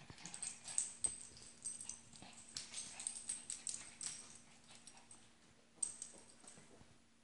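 Two small dogs play-fighting, with short dog vocal sounds and scuffling coming in irregular bursts. The loudest bursts come about a second in and again near six seconds.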